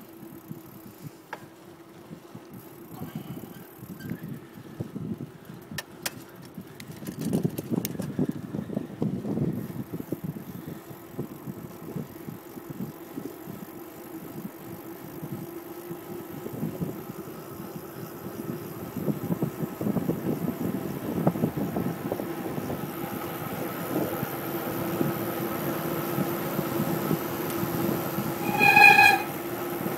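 Wind buffeting a phone microphone and tyre and road noise from a bicycle descending fast, a rough low rushing that grows louder as the ride goes on, with a few sharp clicks and rattles in the first third. Near the end a brief loud pitched tone sounds once.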